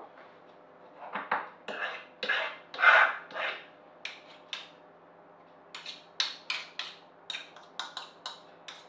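Avocado being mashed and stirred in a small glass bowl with a metal utensil: scraping and clinking of metal against glass in irregular strokes, becoming a quicker run of short strokes, about three a second, in the second half.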